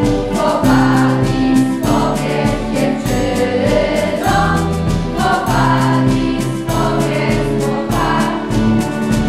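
A children's school choir singing the school anthem in Polish in unison, with sustained sung notes over an instrumental accompaniment with a regular percussive beat.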